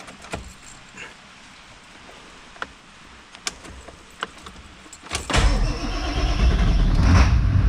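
A few light clicks, then about five seconds in the 1995 Ford F-250 pickup's engine turns over and starts, running steadily after sitting unstarted for a while.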